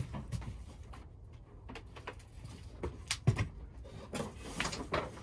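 Flip-over sink panel in a pop-up camper's wooden counter being lifted and swung over, making a series of wooden knocks and clunks. The loudest knock comes about three seconds in, followed by a brief scrape.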